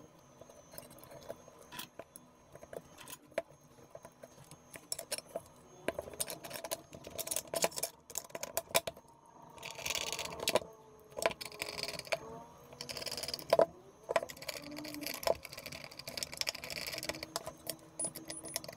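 Small metal parts and tools clicking and clinking against the soldering station's metal housing as it is put back together, with a few longer scratchy rasps near the middle and toward the end.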